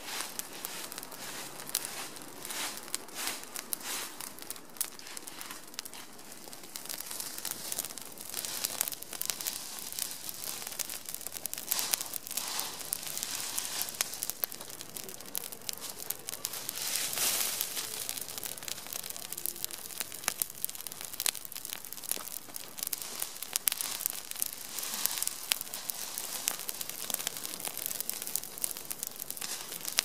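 Small bonfire of dry leaves and twigs crackling, with many sharp snaps over a steady hiss.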